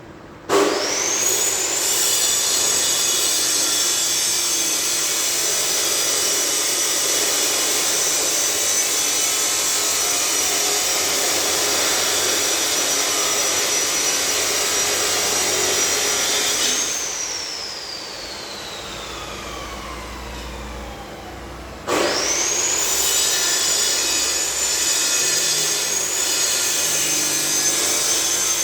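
Angle grinder spinning up with a rising whine and grinding with a steady high whine over a rasping noise. It is switched off about 17 s in and its whine falls as it winds down, then it is started again about 22 s in and grinds on.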